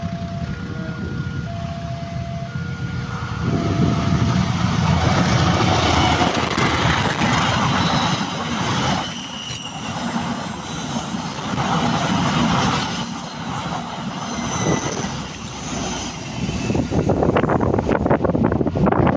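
KAI passenger train passing close by, a steady rumble and rattle of wheels and cars that grows louder about three and a half seconds in and surges several times as the train goes by.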